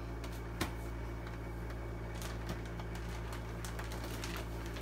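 Steady low room hum, with faint rustling and light ticks from items being handled and one small tap about half a second in.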